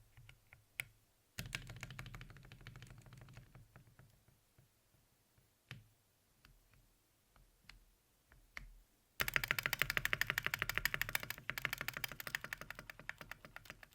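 Mechanical keyboard with Akko Rosewood linear switches, in a 60% aluminium case with an aluminium plate, being typed on; the switches are tuned for a deep, thocky sound. A run of keystrokes tails off into a few scattered single presses, then fast, even typing starts about nine seconds in and is louder.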